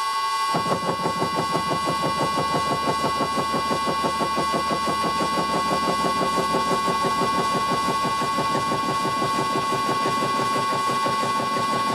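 80 mm shell face mill with APMT carbide inserts taking a 0.8 mm deep face cut in a metal block on a vintage Karger lathe. A rapid, even hammering of the inserts striking the work sets in about half a second in, over the lathe's steady whine. The cut is getting more violent, with hits strong enough to be felt in the ball handle.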